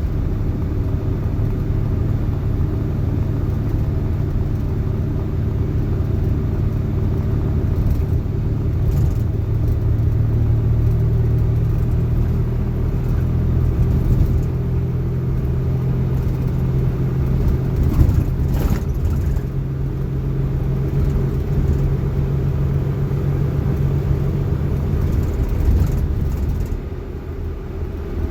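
Suzuki JA71 Jimny being driven, its engine and driveline running steadily, with a short clatter about eighteen seconds in and the engine note falling away near the end.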